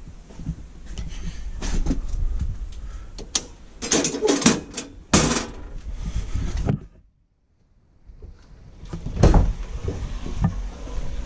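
A series of knocks and clatter from doors being opened and shut, broken by about a second of dead silence just past the middle.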